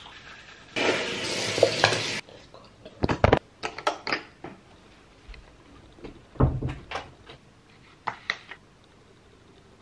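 A burst of steady rushing noise lasting just over a second, then scattered clicks, knocks and a heavier thump. Near the end a plastic water bottle crackles as its cap is twisted open.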